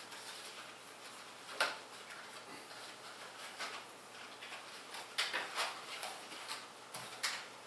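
Scattered small clicks and rustles of packaging and parts being handled.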